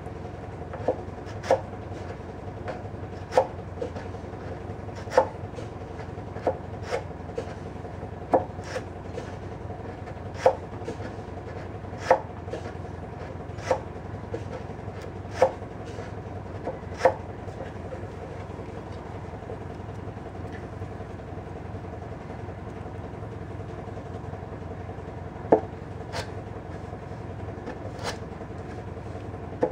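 Sandpaper being worked through the wooden set-neck joint of a semi-hollow guitar body: a series of sharp wooden knocks, each with a brief ring, about one every second or two, pausing for several seconds past the middle before a few more near the end.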